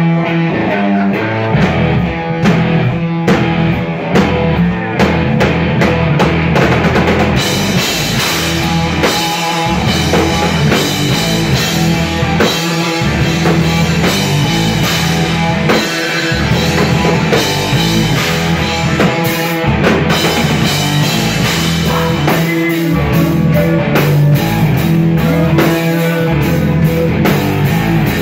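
Live rock band playing electric guitars and a drum kit, loud and continuous; the sound gets fuller and brighter about seven seconds in.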